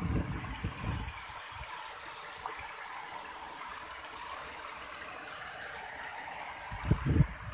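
Garden fountain jets spraying and splashing into a pool, a steady hiss of falling water. Low rumbles on the microphone in the first second and a short, louder one near the end.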